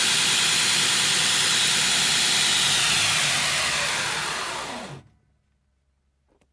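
Belt grinder running with a 36 grit belt, a loud, steady hiss. About three seconds in the motor is switched off and winds down in falling pitch, going quiet at about five seconds.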